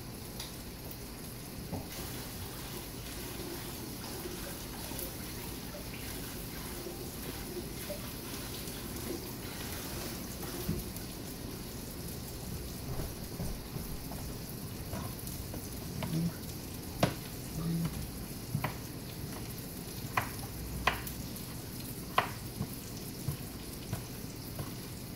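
Salmon fillet frying in oil in a pan, a steady sizzle. In the second half, a few sharp knocks of a knife on a wooden cutting board as green onion tops are sliced.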